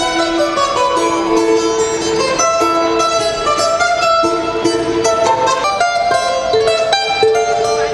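A small mandolin-sized plucked string instrument played through an amplifier, a lively melody of quickly picked notes.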